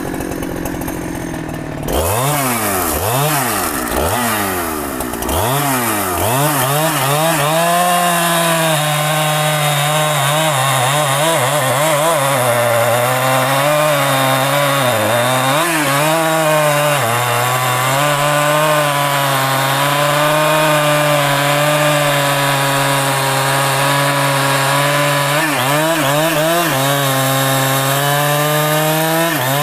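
Large two-stroke chainsaw cutting rain tree wood. It runs lower for about two seconds, is revved in quick rises and falls, then is held at full throttle in the cut for about twenty seconds, its pitch sagging and recovering as the chain bites, before easing off near the end.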